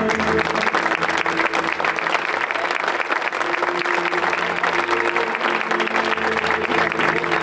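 Crowd breaking into applause, with background music holding long, steady notes underneath.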